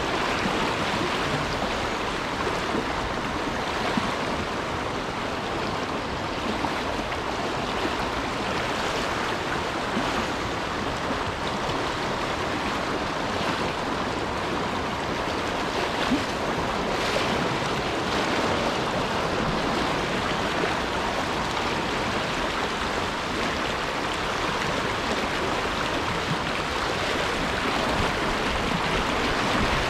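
Fast river current rushing and splashing steadily around the wader, close to the water's surface.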